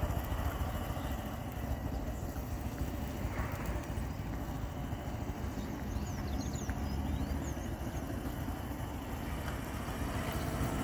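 Small street motorcycle engine running at low speed, heard from a distance as a steady low rumble while it is ridden slowly.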